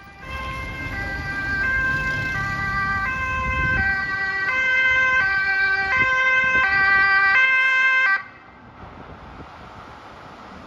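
Ambulance two-tone siren, alternating a high and a low note about every two-thirds of a second and growing louder as it approaches. It cuts off suddenly about eight seconds in, leaving engine and street traffic noise.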